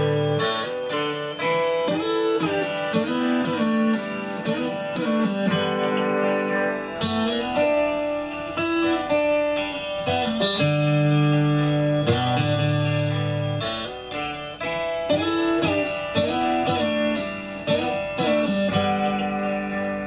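Guitar music, plucked notes and held chords, heard first through the Canon 7D Mark II's built-in microphone and then, partway through, through a Boya BY-PVM 1000 condenser shotgun microphone.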